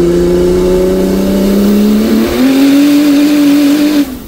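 Tuned Volkswagen car engine accelerating under load, its loud note climbing steadily. About two seconds in it steps up to a higher, steadier note, then cuts off abruptly near the end.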